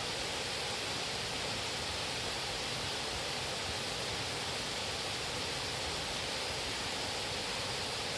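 A steady, even rushing noise that cuts in and cuts off abruptly.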